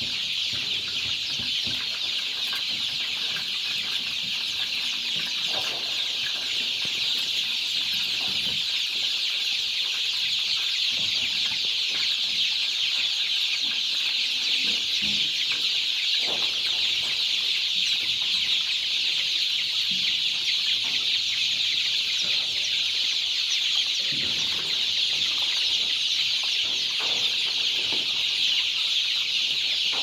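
A large flock of two-week-old improved Kienyeji chicks peeping all at once, a steady dense chorus of high cheeps.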